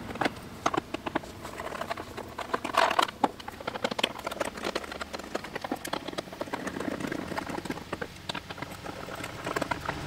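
Screwdriver backing screws out of a scooter's plastic floor panel: irregular small clicks and scrapes of metal on plastic, a little louder about three seconds in.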